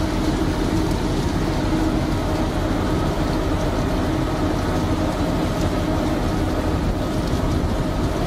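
Steady machinery drone on a fishing trawler's deck, with a constant low hum, together with the wet slithering of a mass of fish pouring out of the trawl net into the steel hopper.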